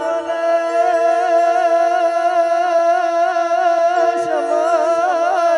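Devotional music: one long held melody note over a steady low drone, the held note starting to waver in pitch about four seconds in.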